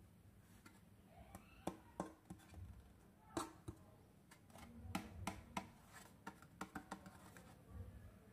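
Fingers handling a hard plastic toy dollhouse: scattered light clicks and taps of plastic with soft rubbing, the sharpest clicks clustered in the middle.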